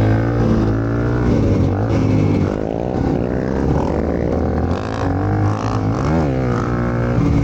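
Honda CRF300L's single-cylinder engine running under load through deep mud, a steady drone with the revs rising and falling a few times.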